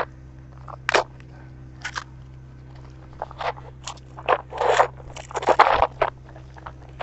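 Cardboard and plastic parcel packaging being torn open and crumpled by hand: sharp irregular crackles and rustles, which grow denser and louder about two-thirds of the way through.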